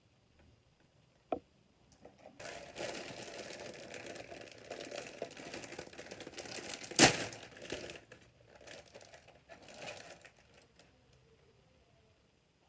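Plastic packaging of a model kit crinkling and rustling as it is handled. There is a sharp click about a second in and a louder crack about seven seconds in, and the rustling thins out near the end.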